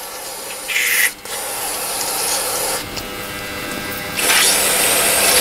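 Aerosol carburetor cleaner hissing from a spray can onto a plastic carburetor part, in a few bursts, the loudest and longest near the end.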